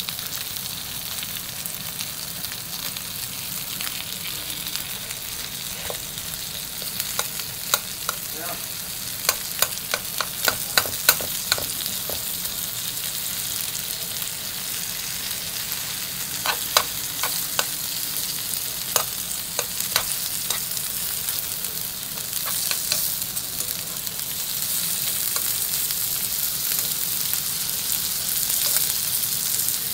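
Sliced sausage and onion wedges sizzling in a frying pan, a steady hiss that grows a little louder near the end. Bursts of sharp clicks and taps come as the food is stirred in the pan, about a third of the way in and again past the middle.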